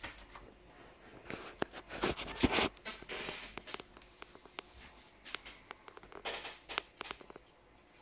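Scuffing and rustling with scattered light clicks as a cockatiel moves about on a wooden desk and onto a hand, loudest about two to three seconds in. No calls from the bird.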